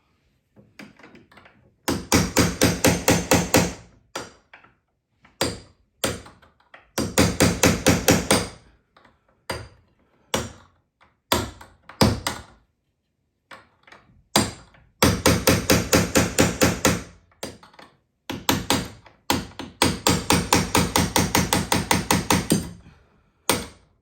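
Rapid bursts of metal-on-metal impacts driving a screw extractor into a broken-off hinge screw, four runs of two to three seconds each, with single sharp knocks in between.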